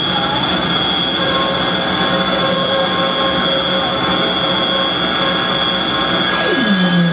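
Live electronic noise music from a mixing desk and clip-wired electronics: a dense, steady wash of hiss and rumble with high whistling tones held over it. Near the end a tone sweeps sharply down in pitch.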